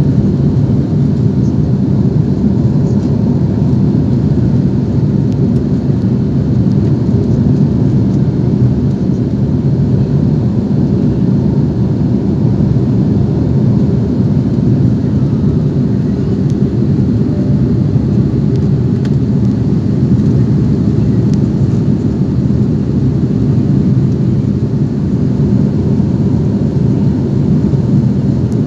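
Steady low rumble of cabin noise inside a jet airliner in cruise flight above the clouds, unchanging throughout.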